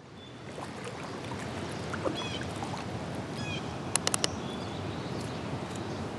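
Outdoor river ambience heard from a kayak: a low steady rush of wind and water, fading in at the start, with a few short bird chirps and a quick run of four sharp clicks about four seconds in.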